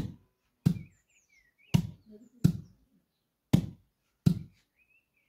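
Wheat being pounded by hand, two people taking turns with heavy pounders: six dull thuds at a limping beat, about one a second. Faint bird chirps between the strokes.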